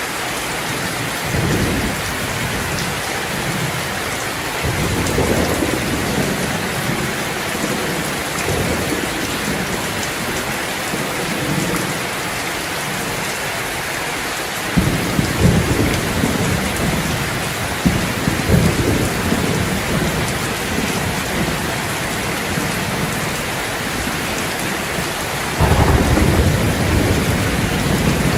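Steady rain falling on a terrace, with thunder rumbling low again and again. The heaviest rolls come about halfway through, and the loudest peal breaks in suddenly near the end.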